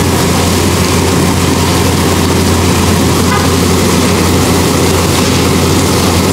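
Onion and tomato tadka sizzling on a large iron tawa over a burner: a loud, steady hiss with a low roar under it.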